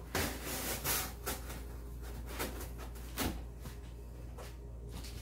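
A large corrugated cardboard shipping box being handled and opened: irregular rubbing and scraping of cardboard flaps and sides, with a few knocks against the box.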